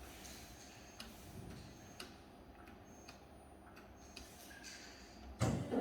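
Faint clicking about once a second from the horizontal bandsaw's mechanism. Near the end comes a loud, heavy clunk as the machine's vise or clamp moves, followed by a steady low hum starting.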